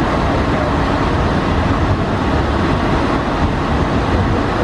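Steady cockpit noise of an Embraer KC-390 taxiing: its two IAE V2500 turbofan engines running, blended with the hiss of air on the flight deck, an even low-heavy noise with no sudden changes.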